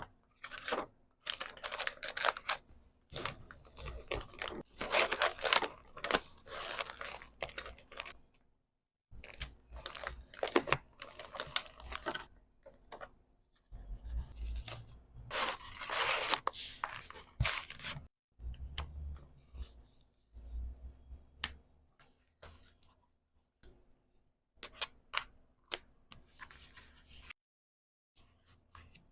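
Close-up sounds of packing an order by hand: packaging rustling, tearing and snipping in irregular bursts, with small clicks and taps and short pauses in between.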